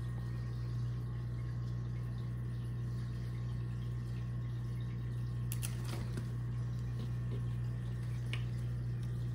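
Steady low electrical hum, with a few faint clicks and rustles about halfway through and again near the end.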